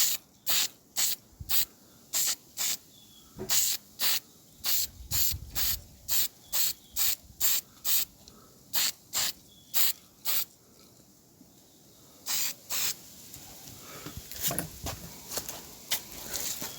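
Spray paint hissing from the nozzle in a quick run of short bursts, about two a second, as red oxide undercoat is laid on; the bursts stop about ten seconds in, two more follow, then only fainter, scattered hissing.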